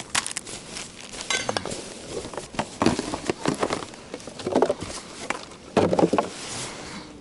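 Hands rummaging through bags and gear: rustling with irregular clinks and knocks of items being moved, loudest in clusters about three and six seconds in.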